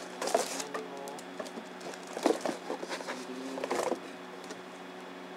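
Rustling, tapping and knocking of a camera box and its packing being handled close to the microphone, in three spells of clicks over the first four seconds, with a few short squeaks. A steady low electrical hum runs underneath.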